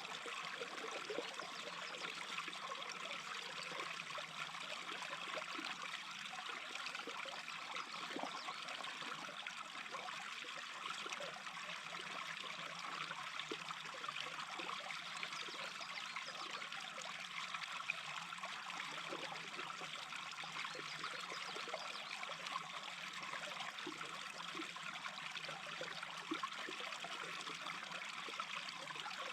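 A small brook babbling steadily over stones, an even rush of water with little splashes and trickles.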